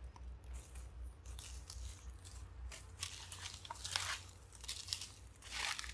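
Footsteps crunching on dry fallen leaves: irregular crackling steps, loudest about three to four seconds in and again near the end, over a low rumble.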